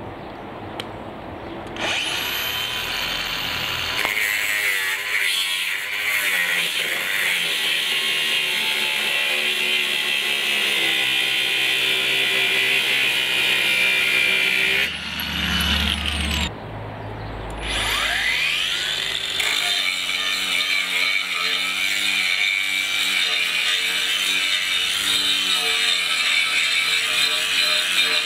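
Cordless 18V brushless angle grinder running under load on steel. It spins up about two seconds in, stops and winds down about halfway through, then starts again and runs on.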